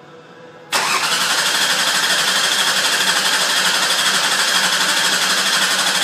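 A 2003 Ford Taurus's 3.0 L Vulcan V6 being cranked over by the starter, starting abruptly a little under a second in. The cranking is not consistent, the sign of low compression in one or more cylinders, which the mechanic blames for the rough idle and misfire.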